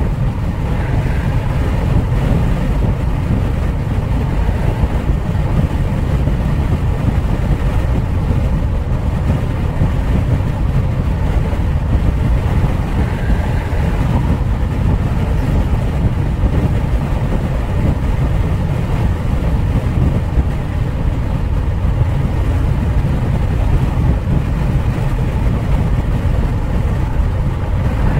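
Steady low rumble of a car travelling at motorway speed: road, tyre and engine noise, even and unbroken.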